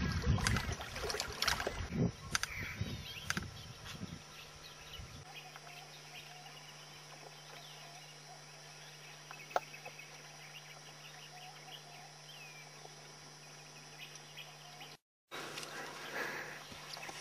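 Faint bird chirps and insect noise over a steady low hum, after a few seconds of louder irregular knocking and clicking.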